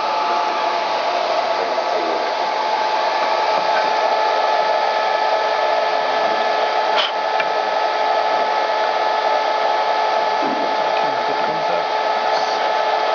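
Steady rushing machine noise with several steady whining tones through it, from equipment running at the CNC router, and one sharp click about seven seconds in.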